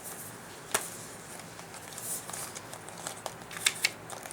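A Blu-ray steelbook case and its paper inserts being handled: a sharp click about a second in, light crinkling and rustling, then a quick run of clicks near the end.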